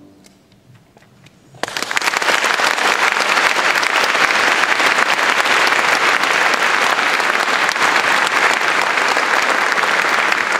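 Audience applause that starts suddenly about a second and a half in and then continues steadily.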